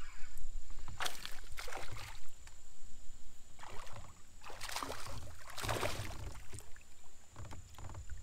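Hooked largemouth bass splashing at the surface beside a kayak as it is reeled in: several short splashes over a few seconds.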